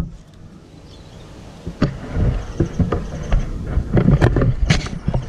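Mango tree branches and leaves rustling close to the microphone, with irregular clicks and knocks and a low wind rumble on the microphone that start about two seconds in.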